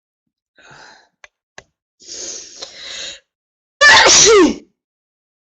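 A woman sneezing during a prolonged fit: a faint breath and a couple of small clicks, then a noisy two-part intake of breath, and about four seconds in one loud sneeze whose voice falls in pitch.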